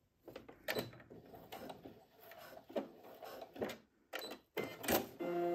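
Brother Innovis F420 computerized sewing machine giving scattered, irregular clicks and short mechanical noises as a seam is finished, with its buttons pressed by hand, not sewing steadily.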